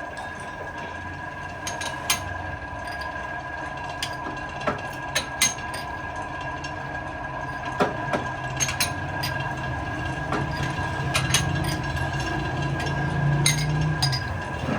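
A workshop machine running with a steady whine and a low hum, with scattered sharp metallic clicks and knocks. The hum grows stronger toward the end, then stops shortly before the end.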